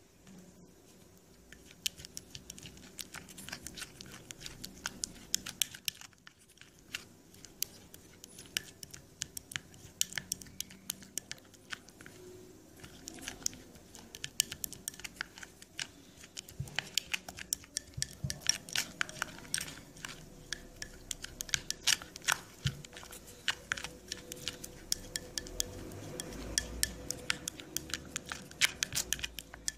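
Plastic spoon stirring a wet rice-powder paste in a ceramic bowl, scraping and clicking against the bowl's sides several times a second.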